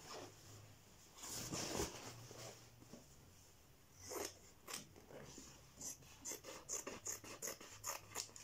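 Scissors snipping through printed fabric, a run of short snips that come two or three a second in the last few seconds, after a brief rustle of the cloth being handled.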